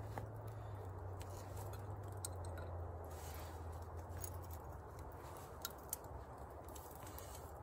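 Small campfire of glowing embers and smoldering sticks crackling faintly, with scattered sharp pops and ticks. A low steady hum underneath stops a little past halfway.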